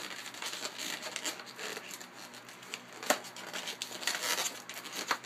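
Hands rubbing and handling inflated latex twisting balloons while tying the uninflated tail of one around the other: irregular rustling with one sharp click about three seconds in and a smaller one near the end.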